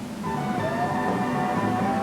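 Instrumental background music under a TV weather forecast: a long held melody note that slides up slightly about half a second in, over accompanying chords.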